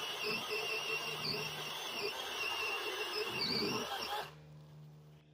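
Chainsaw running at full throttle in the felling cut through a small dead tree's trunk, with a steady high whine. About four seconds in the throttle is released and the sound drops abruptly to a faint low idle hum.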